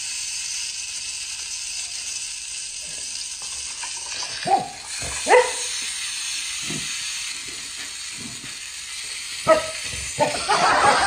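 A Labrador retriever giving a few short barks over a steady hiss: two about halfway through and another near the end. A louder noise rises in the last second.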